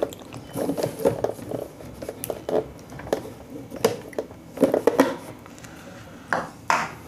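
Hard plastic parts of a Kent RO water purifier clicking and knocking as its UV chamber is worked loose and pulled out of the unit, with a brief scrape near the end.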